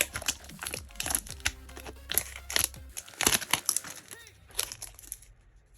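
Foil wrapper of a Pokémon TCG booster pack crinkling as it is handled and opened, a run of sharp crackles that stops about five seconds in.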